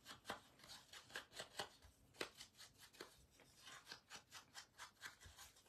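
Foam ink blending tool rubbed in quick strokes over a cardstock strip, inking its edges brown: faint, rapid swishes, several a second.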